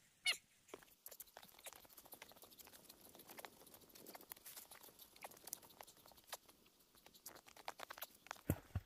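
Faint crunching and scraping of a shovel digging into snow: a fast, uneven run of small crunches, with a few duller thumps near the end.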